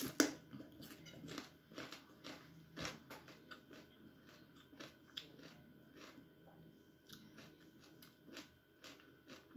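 A person chewing food by hand-fed mouthfuls of papaya salad and sticky rice, with faint irregular crunches and small clicks.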